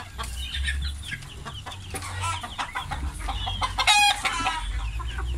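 A flock of young chickens clucking while pecking grain off a stone slab, with short sharp clicks throughout and a loud, short call about four seconds in.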